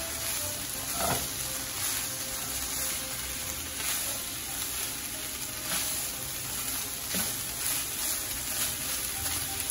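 Ground turkey and green beans sizzling in a nonstick skillet as a spatula stirs them, with a few light scrapes of the spatula against the pan.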